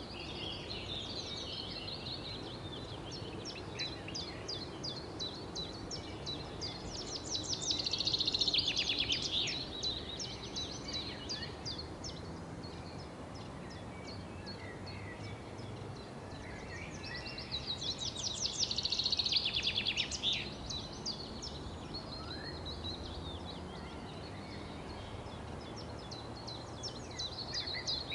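Several birds chirping and twittering over steady low background noise, with two louder runs of rapid chirping, about eight and nineteen seconds in.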